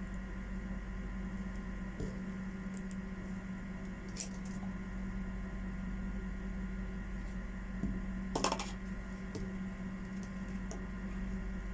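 Steady low hum with scattered faint clicks and one short rattle about eight and a half seconds in.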